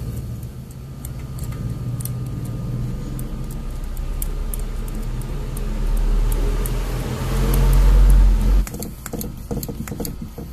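Low rumble of a motor vehicle engine running, swelling to its loudest and then stopping abruptly about eight and a half seconds in. Light clicks from handling a mini bicycle pump head on a tyre valve run throughout and are clearest after the rumble stops.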